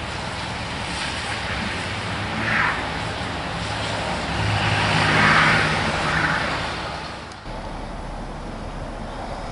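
A car engine running under load as a sedan stuck in snow tries to pull out, its engine hum steady. About halfway through, another car passes on the wet road, and its tyre hiss is the loudest part. Near the end the sound changes abruptly to a steady traffic rumble.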